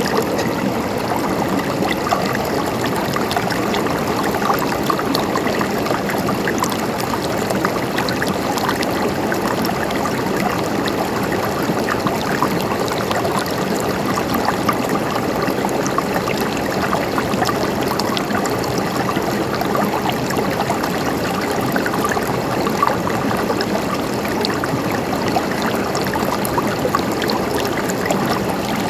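Mountain stream flowing and trickling over rocks: a steady, even babble of running water with small splashes throughout.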